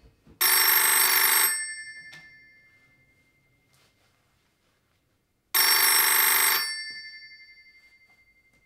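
Black rotary-dial telephone's bell ringing twice, each ring about a second long and about five seconds apart, the bell tones fading away after each ring: an incoming call that has not yet been answered.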